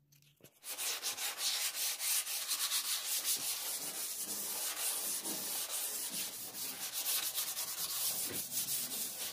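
Hand sanding the painted aluminum hull of a jon boat with a sanding pad: quick back-and-forth strokes, about three a second, starting about half a second in.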